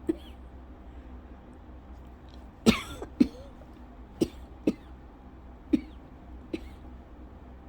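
A person's lingering cough from a scratchy throat that has stayed after an illness: about seven short coughs at uneven gaps, the loudest about two and a half seconds in.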